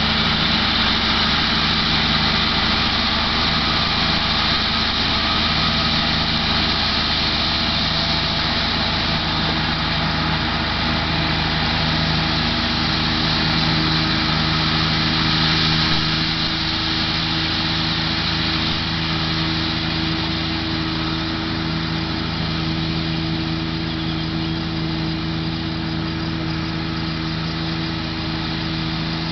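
Massey Ferguson 6130 tractor's diesel engine running steadily under load while driving a Kuhn GMD 600 disc mower through hay, with a steady high hiss above the engine note. The sound gets a little fainter about halfway through.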